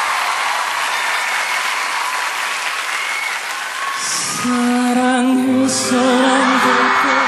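Audience applause, giving way to music about four and a half seconds in.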